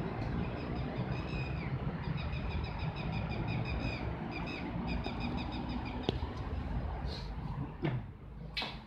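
A bird chirping in quick repeated trills over a steady low street rumble for the first six seconds or so. A sharp click and a few short rustling knocks follow near the end, from the phone being handled.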